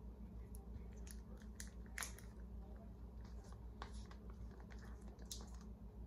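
Scattered small clicks and rustles of a plastic baby bottle being handled, the sharpest about two seconds in, over a steady low hum.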